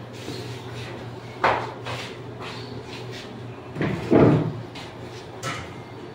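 A sharp knock about a second and a half in, then a louder, duller thump near four seconds, over a steady low hum.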